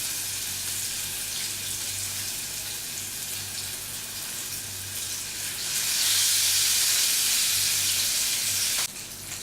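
Masala-coated pomfret pieces sizzling in hot oil in a shallow pan. The hiss grows louder about six seconds in, then stops abruptly near the end, leaving a few crackles.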